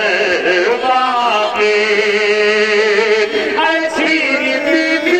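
A man chanting a noha, a Shia mourning lament, sung into a handheld microphone. The notes are long and held, gliding between pitches.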